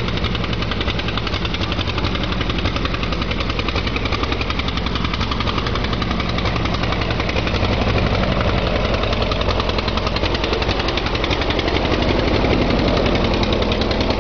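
1947 Allis-Chalmers WC tractor's four-cylinder engine running with a rapid, even exhaust beat as the tractor drives along, getting a little louder as it comes close in the second half.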